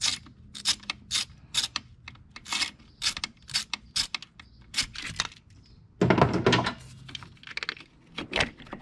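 Ratchet and socket clicking in irregular single clicks as a spark plug is backed out of its plug well, with a louder scraping rattle of tools about six seconds in.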